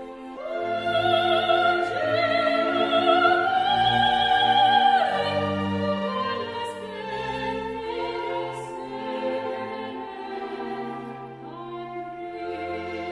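Operatic singing with orchestral accompaniment: a voice holds long notes with vibrato, climbing step by step over the first few seconds and dropping at about five seconds, over sustained low string notes.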